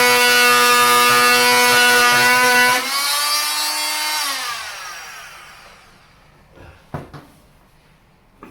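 Oscillating multi-tool running steadily with a high buzzing hum while cutting a notch into a corroded Phillips screw head. About three seconds in it is switched off and its pitch falls as it winds down. A few light knocks follow near the end.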